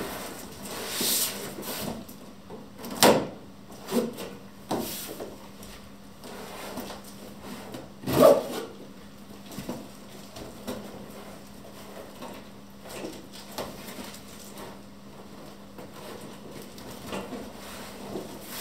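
Large cardboard shipping box being handled and shifted on a wooden table: scattered scrapes and knocks of cardboard against wood, the loudest about three seconds in and again about eight seconds in, over a steady low hum.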